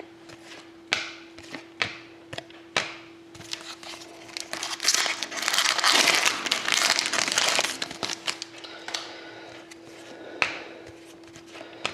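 Foil wrapper of a hockey card pack being torn open and crinkled for a few seconds in the middle, with sharp clicks and taps of the cards being handled before and after.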